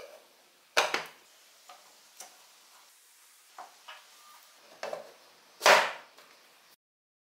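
Hard PVC pipe fittings clacking and knocking against each other as they are handled and pushed together, a few light knocks between a sharp one about a second in and the loudest one near the end.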